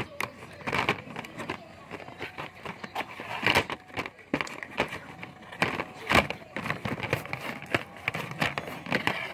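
Clear glue slime being stretched, folded and squeezed in the hands, giving off irregular sticky clicks and pops.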